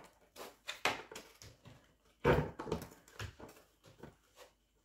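Husky puppy biting and nosing a cardboard box: irregular crackles and scrapes of cardboard, loudest a little after two seconds in.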